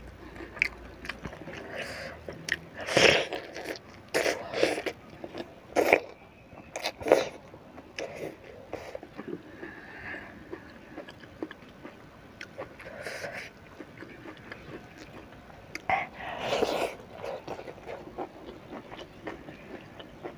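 Close-miked eating of crispy fried sepat fish: loud crunchy bites at about 3, 4, 6 and 7 seconds in and again around 16 seconds, with softer chewing and wet mouth clicks between.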